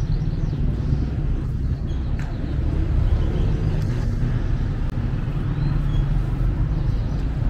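Outdoor street ambience: a steady low rumble of road traffic, with faint scattered sounds above it.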